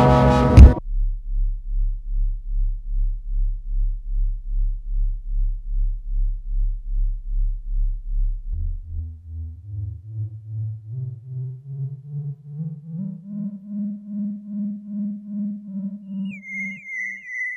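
Electronic synthesizer music. A loud, dense passage cuts off abruptly under a second in and gives way to a low, throbbing synth tone that pulses about three times a second. From about eight seconds in the tone climbs upward in steps, and near the end high chirping tones glide in above it.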